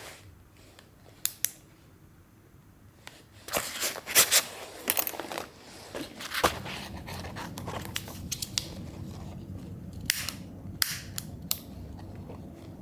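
Camping gear being handled: scattered sharp clicks, then a dense cluster of clattering knocks a few seconds in, and a steady low rustle with a few more clicks near the end.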